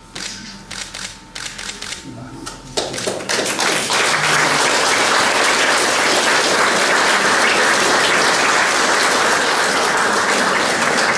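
Audience applause: a few scattered claps at first, then about three seconds in a roomful of people breaks into full, steady clapping.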